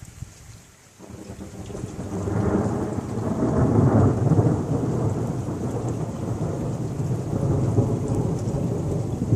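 Thunder rumbling: it breaks in suddenly about a second in, swells to its loudest around the middle and keeps rolling deep and low, over steady rain.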